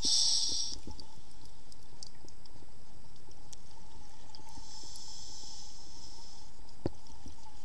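Underwater sound picked up by a scuba diver's camera: a steady faint hum, with the hiss of breaths drawn through a scuba regulator, a short loud one at the start and a longer, softer one about four and a half seconds in. A single sharp click comes near the end.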